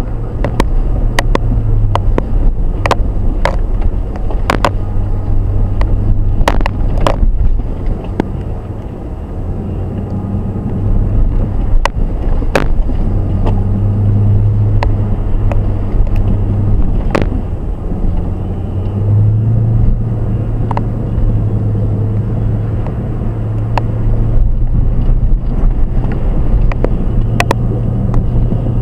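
Jeep Grand Cherokee WJ driving slowly over a rough, rocky off-road trail, heard from inside the cabin: a steady low engine drone that swells and eases at times, with frequent sharp knocks and rattles from the bumpy track.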